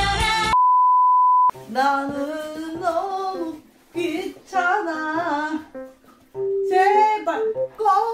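Background music cuts off and a steady high beep sounds for about a second, then a woman sings a short wavering tune on her own, in several short phrases.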